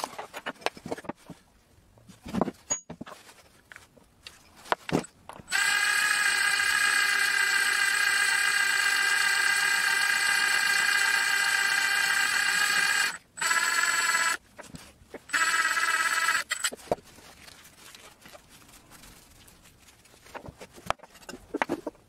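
Cordless drill running at a steady speed with a high whine as it drills a pinhole through a new metal wheel-hub dust cap. It runs for about seven seconds, stops briefly, then runs twice more in short bursts. Before it come light clicks and crinkling from handling the part.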